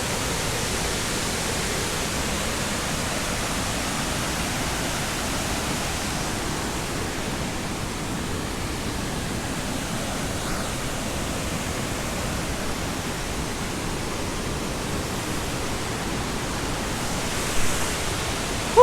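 Steady, even rushing of falling water from the waterfalls and river in the gorge below.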